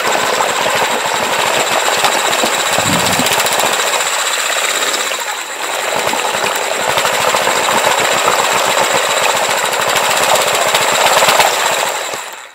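Electric drill running a wire mixing paddle through a tub of raw eggs, whisking them to a froth: a steady high motor whine over the churning eggs. It eases off briefly around the middle and stops near the end.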